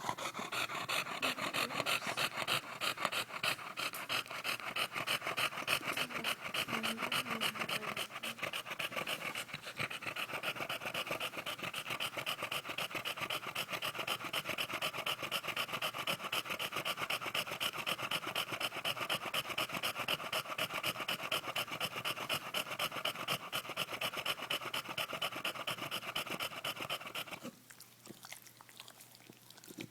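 English bulldog panting heavily and rapidly after play, in a fast, even rhythm. The panting stops abruptly a couple of seconds before the end.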